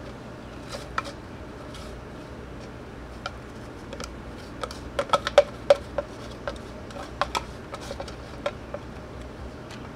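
Small plastic brush scraping and tapping inside the clear plastic dust cup of a Deerma DX115C stick vacuum, dislodging dirt. It makes a scatter of sharp clicks and knocks that come thickest about halfway through.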